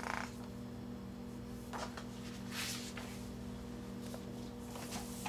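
Faint handling of paper: a few soft swishes and rustles as a booklet's glossy pages are slid and moved on a table, over a steady low hum.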